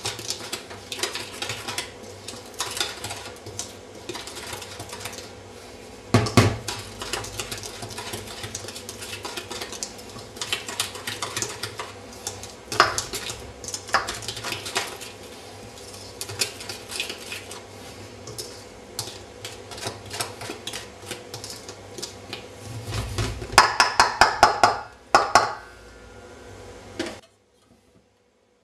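Wire whisk scraping and clinking against a stainless steel mixing bowl as it stirs dry flour, sugar and salt. A run of louder metal clinks comes near the end, then the sound stops abruptly.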